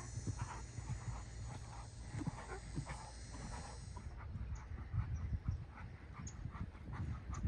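Hoofbeats of a ridden bay dressage horse on sand arena footing: muffled thuds in a regular stride rhythm as it canters and trots. The background hiss changes about four seconds in, where the clips are spliced.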